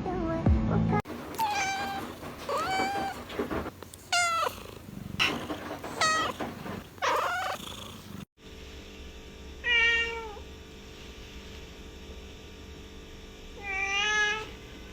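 Domestic cats meowing: a quick run of about six meows, then after an abrupt cut two separate, longer meows a few seconds apart.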